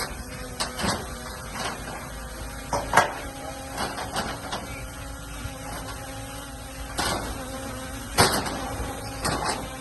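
Diesel engine of a dump truck or small bulldozer running steadily, with irregular metallic clanks and knocks; the loudest come about three seconds in and again near the end.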